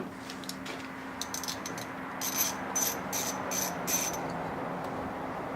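Metal hand-tool work: a run of short, rhythmic scraping strokes, about three a second, over a steady low electrical hum.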